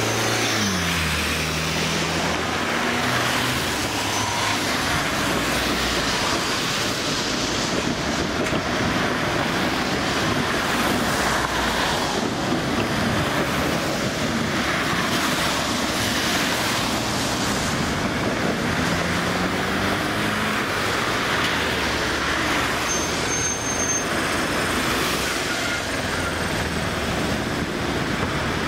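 Steady city street traffic on a wet road, cars and trams passing, with an engine's pitch falling near the start and rising again later on.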